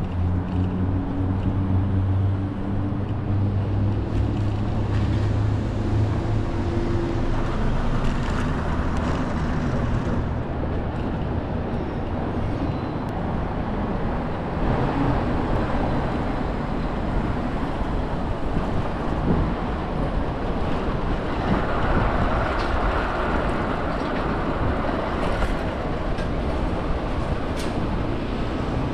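City street traffic: a nearby engine hums steadily for the first seven seconds or so and fades out, leaving a steady wash of traffic noise.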